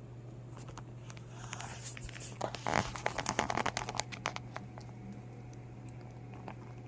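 Syrian hamster nibbling a dry, crisp treat: a run of small crackly crunches for about two seconds around the middle, over a steady low hum.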